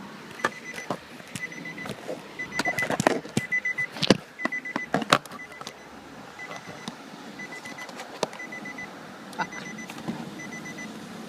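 Nissan 370Z's electronic warning chime beeping: short groups of quick beeps repeating about once a second, as from an open door with the key in. Between about two and a half and five and a half seconds in, a string of sharp clicks and knocks from plastic trim and connectors being handled.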